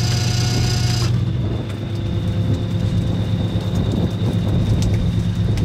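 Small fishing boat's engine and net-hauling gear running with a steady low drone, with wind and water noise over it. A set of higher steady tones cuts off abruptly about a second in.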